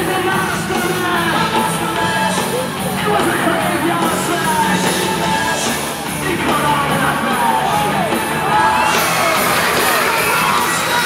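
Loud rock show music with crowd voices yelling and whooping over it, their shrill cries gliding up and down, more of them in the second half.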